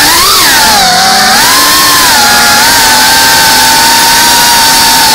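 Racing quadcopter's brushless motors and propellers whining loudly, the pitch dipping and rising with throttle changes in the first second and a half, then holding steady.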